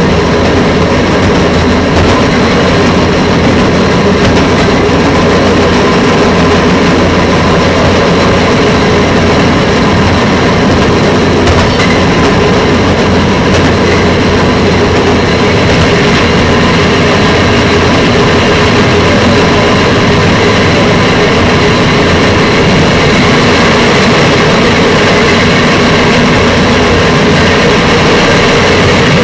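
Train SHX 4033 running along the track, heard from on board: a loud, steady mix of engine drone and wheel-on-rail noise that does not let up.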